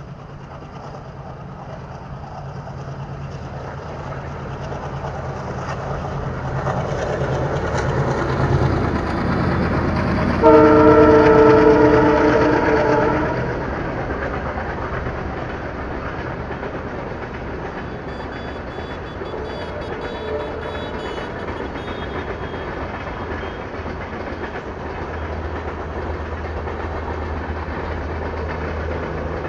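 ALCo WDM3A diesel locomotive with its 16-cylinder ALCo 251 engine growing louder as it approaches with heavy chugging, then sounding one long multi-tone horn blast about ten seconds in. After that the passenger coaches roll past in a steady rumble, wheels clattering over the rail joints.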